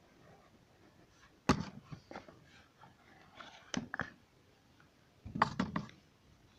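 A small black cardboard box being handled and opened: a few sharp knocks and scrapes as the lid comes off and is put down, with a quick cluster of them near the end.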